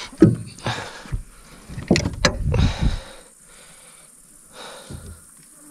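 Handling noise from a catfish in a landing net on a boat deck: rustling, knocks and a couple of sharp clicks for about three seconds, then only a faint hiss.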